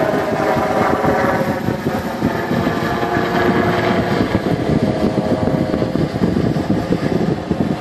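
Helicopter climbing overhead after takeoff: fast, steady rotor chop with a whining tone on top that fades about three seconds in while the chop carries on.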